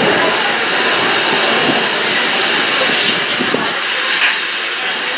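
Oxy-fuel cutting torch mounted on a ring-type pipe beveling machine, hissing steadily as it cuts through steel pipe.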